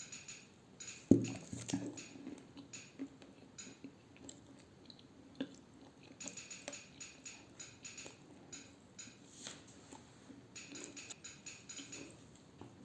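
Dry edible clay being bitten and chewed: one sharp snap about a second in, then a long run of small crackling crunches.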